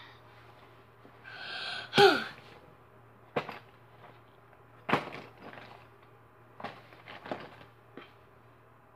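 Objects being handled: a series of separate sharp knocks and clicks. The loudest comes about two seconds in, together with a brief falling squeal.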